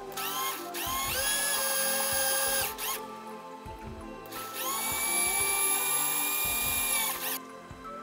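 Mini electric drill with a thin twist bit whining as it drills through a thin clear plastic sheet, in two main runs of about one and a half and three seconds after a couple of brief blips, the pitch rising each time it spins up. Background music underneath.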